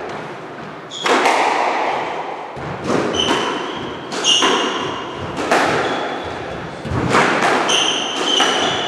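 Squash rally: the ball is struck by rackets and hits the court walls in sharp, echoing knocks about once a second, with short high squeaks of shoes on the wooden court floor between the shots.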